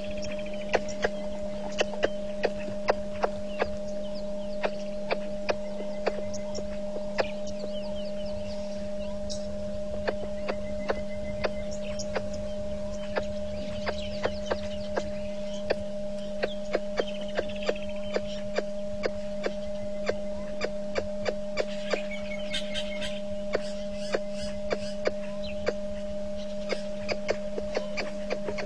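Steady electrical hum carrying two constant tones, with sharp clicks every second or so and birds calling faintly in the background.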